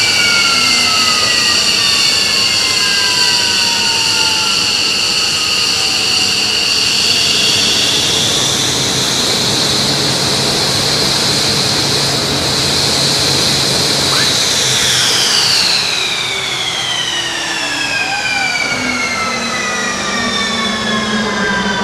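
F-15C Eagle's twin Pratt & Whitney F100 turbofan engines spooling down at shutdown: a loud jet whine falling slowly in pitch. About fifteen seconds in, another high whine starts and glides down steadily.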